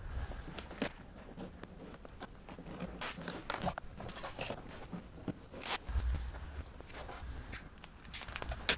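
Rubber bulb door gasket with 3M adhesive tape being pressed by hand onto a UTV door frame: irregular rustling, tearing and scraping sounds with a few sharp clicks, the loudest about two-thirds of the way through alongside a dull thump.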